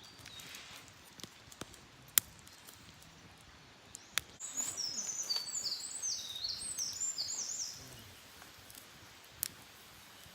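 A wild songbird sings a fast run of high, repeated down-sweeping notes for about three seconds, starting a little before the middle. A few sharp pops from a wood campfire come before and after it.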